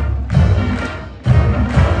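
Combined marching band playing, with brass over drums. The music thins out briefly about a second in, then comes back with a sudden loud full-band hit.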